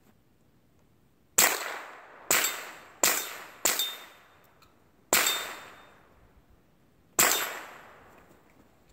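Six rifle shots at uneven spacing: four within about two and a half seconds, then two more about two seconds apart. Each shot trails off over roughly a second.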